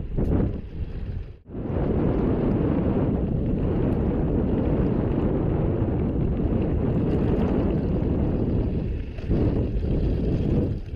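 Wind buffeting the microphone: a steady, heavy low rumble that drops out briefly about a second and a half in.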